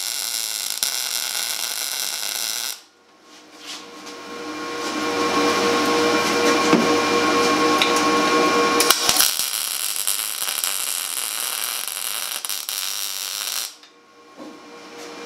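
Arc welding: two tack welds on the steel hairpin leg, the first ending about three seconds in and the second starting about nine seconds in and stopping near the end, with a steady hum between them. These are the tacks on the inside of the leg that pull the heat-distorted rod back into place.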